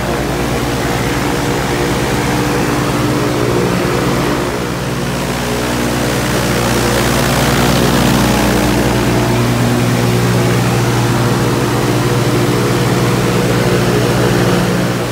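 Viking aircraft engine and propeller running steadily at about 2,700 rpm on a ground run, heard from the open cockpit.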